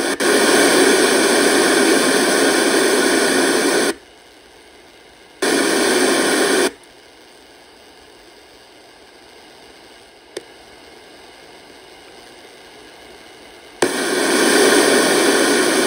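Loud hiss through a signal tracer's speaker, its probe on the collector of the Channel Master 6514's 2S44 germanium driver transistor. The hiss cuts out and comes back three times, with a faint click in one quiet stretch. The owner takes the noise for the sign of a bad germanium transistor.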